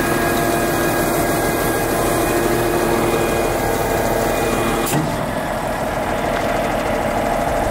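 Volvo FH540 hook-lift truck's 13-litre straight-six diesel idling steadily, with a steady whine held over it. There is a single click about five seconds in.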